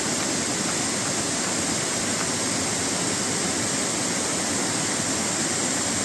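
Falling water from a waterfall, a steady, even rush with no breaks.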